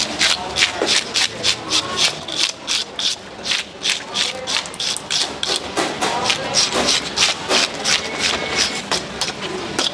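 Rhythmic scraping strokes, about three a second, over a hard surface.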